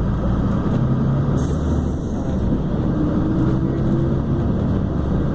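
International-chassis Ayco Zafiro city bus's diesel engine running steadily, with a short hiss of air about a second and a half in that lasts about a second.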